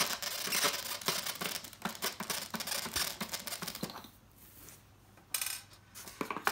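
Hand screwdriver turning screws inside a polystyrene foam box, a scratchy rubbing with many small clicks as the shaft grinds against the foam. It stops about four seconds in and starts again briefly near the end.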